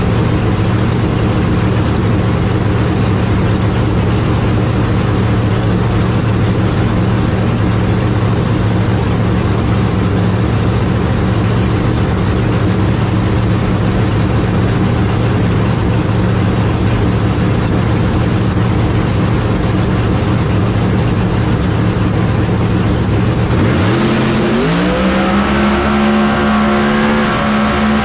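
A ProCharger-supercharged drag car's engine idling loudly, heard from inside the cockpit. About 24 seconds in it revs up sharply, holds at high revs for a few seconds, then drops back near the end.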